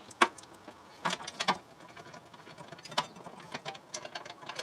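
Scattered sharp metallic clicks and clanks of hand tools on brake hardware, a few loud ones at irregular intervals with quieter ticks between.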